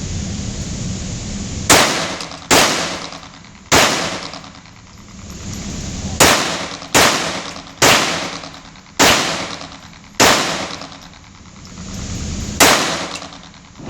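A .22 firearm firing nine single shots at an uneven pace, each a sharp crack followed by a short echoing tail.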